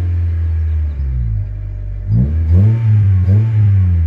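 2000 Honda Civic EX's four-cylinder engine, fitted with a short ram intake and aftermarket exhaust, heard from inside the cabin being revved: it holds a raised idle, settles lower about a second in, then takes several quick throttle blips from about two seconds in, pitch rising and falling with each. The intake's air rush rises with the revs.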